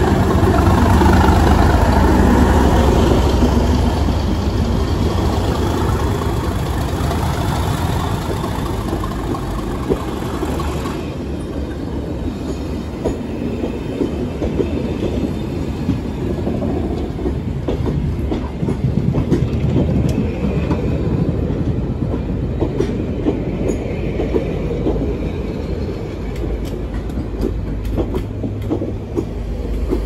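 Class 37 diesel locomotive, its English Electric V12 engine running as it passes close by, loudest at first and easing after about ten seconds; then the coaches of a Network Rail test train roll past with a steady rumble and repeated wheel clicks over rail joints.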